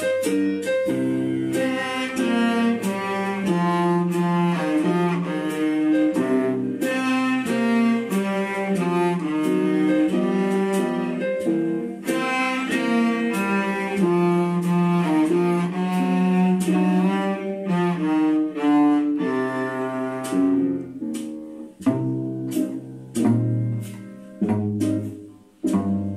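Cello played with the bow: a tune of many short, quickly changing notes with crisp attacks. Near the end the bowed line thins out into shorter, separated notes.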